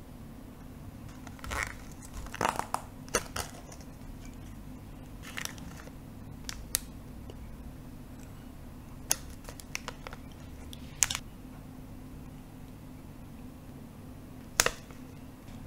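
Plastic zip bag crinkling and being tapped in short, scattered bursts and clicks, over a faint steady low hum.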